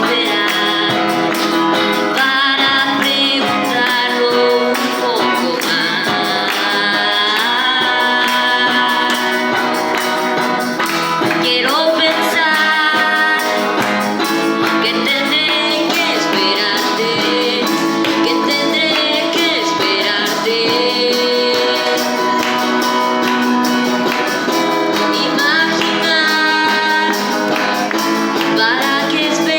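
Live amateur band playing a song: a sung melody over plucked guitar accompaniment, continuous throughout.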